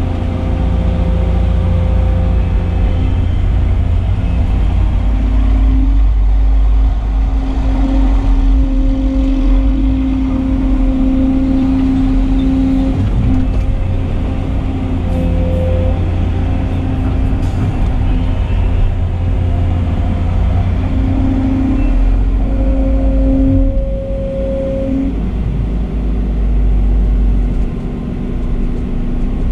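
Volvo excavator's diesel engine and hydraulics working under load, heard from inside the cab: a steady low drone with a hydraulic whine that strengthens and fades as the boom and bucket move.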